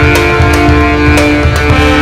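Loud rock-style background music: sustained guitar chords that change a little after a second, over regular drum hits.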